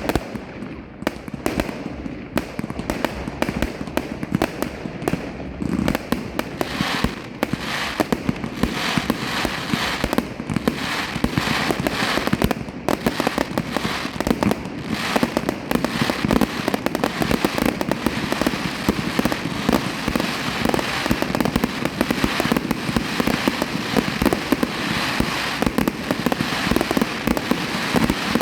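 Fireworks going off in rapid, dense succession: many sharp pops and crackles, a little sparser at first and becoming a continuous crackling barrage from about six seconds in.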